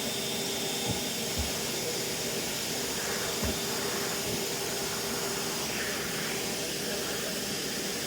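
Vacuum cleaner running steadily, a constant hiss with a steady hum and whine, with a few soft low knocks in the first half.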